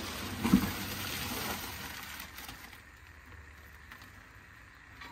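A plastic bag liner rustling as bare-root trees are handled in a cardboard shipping box, with a brief thump about half a second in. The rustling dies down after about two seconds.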